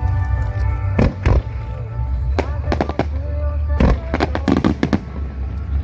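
Fireworks bursting: a string of sharp bangs in quick succession, with a cluster of several near the middle and end, over music.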